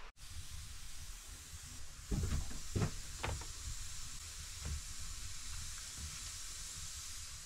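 Steady hiss at a camp stove, with a few knocks and clatters of a plate and cutlery about two to three seconds in and once more a little later.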